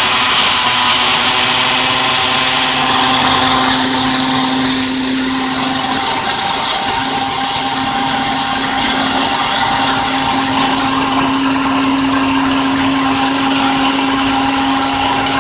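Ninja blender running steadily, its motor whining at an even pitch as it purees banana with aloe vera juice, honey and oils.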